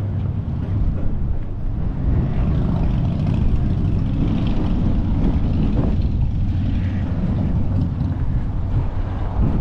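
Wind buffeting the action camera's microphone: a loud, steady, low rumble.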